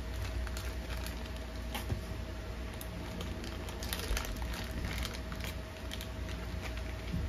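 Steady low hum with a faint steady high tone, and scattered light clicks and ticks, bunched together about four seconds in.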